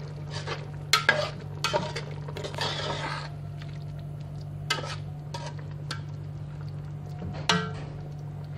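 A metal spoon stirring fish in sauce in a metal cooking pot, scraping along the pot and knocking against its side in a few sharp clinks, the loudest about seven and a half seconds in. A steady low hum runs underneath.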